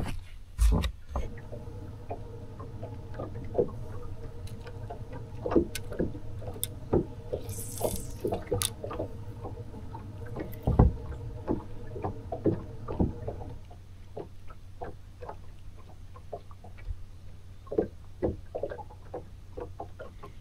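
Electric bow-mounted trolling motor on a bass boat humming steadily, then cutting off about two-thirds of the way through. Scattered light knocks and taps on the boat come and go throughout.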